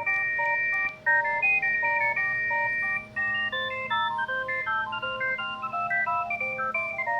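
Panasonic GD75 mobile phone playing a polyphonic ringtone: a melody of simple electronic tones, two or three notes at once, moving in short steps, with brief breaks between phrases about a second and three seconds in.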